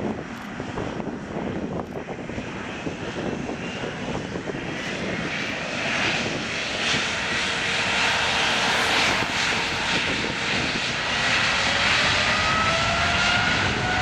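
Jet engines of a Boeing 777-300ER, its GE90-115B turbofans, running as the airliner taxis past. The noise grows louder about five seconds in, and a whine rises in pitch near the end.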